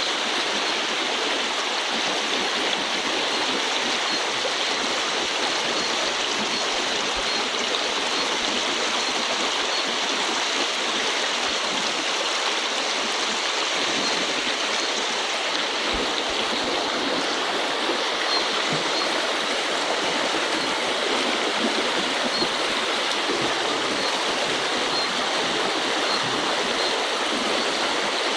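A small, shallow river flowing over a riffle: a steady, even rush of water.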